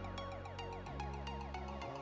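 Electronic background music with a steady beat, repeating synth notes and a bass line.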